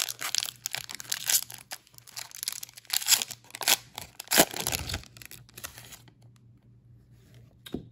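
Foil trading-card pack wrapper being torn open and crinkled by hand: a quick run of sharp rips and crackles lasting about five seconds.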